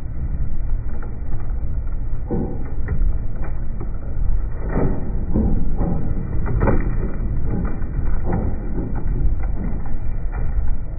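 Caterpillar crawler dozer pulling a Savannah 200 disc bedding plow through soil: a steady low engine and track rumble, with irregular cracks and snaps as the discs cut through roots and clods, most frequent in the middle.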